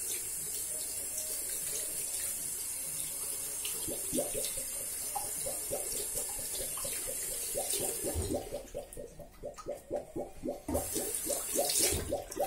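Tap water running into a sink, steady for about eight seconds, then stopping and running again briefly near the end. Through the second half comes a fast rhythmic sound of about four strokes a second.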